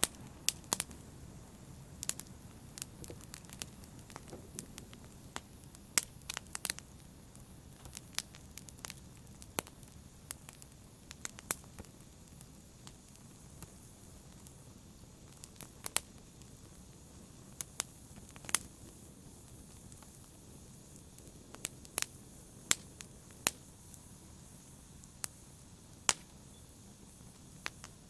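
Wood fire burning in a fireplace: a soft steady rustle under irregular sharp crackles and pops, some much louder than others.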